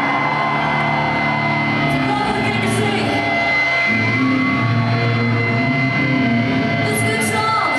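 Live metal band playing loudly in a hall: electric guitar and bass holding sustained notes that change every second or so, with a steady high whine running under them.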